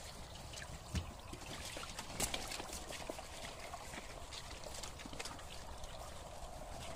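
Water splashing and dribbling in a plastic tub holding two carp as it is lifted and carried, with a couple of light knocks about one and two seconds in.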